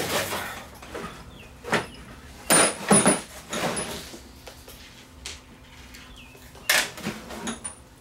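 Plastic socket-set case being handled and shut, with a few sharp knocks and clatters of the case and the tools inside at irregular intervals, loudest about three seconds in.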